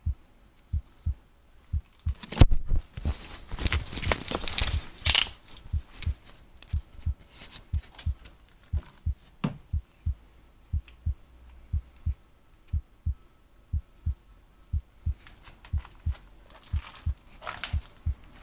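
A strange low thumping in a steady rhythm, about two beats a second, with bursts of rustling about two seconds in and again near the end.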